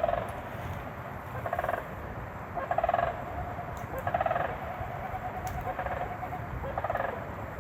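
An unidentified animal's call, heard five times at intervals of about a second: each call is a short, rattling, pulsed note, and between some of them a faint steady tone hangs on.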